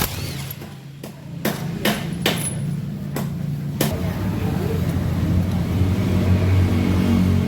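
About six sharp metal knocks and taps during the first four seconds as the scooter's final-drive gear case is taken apart, over a steady low hum.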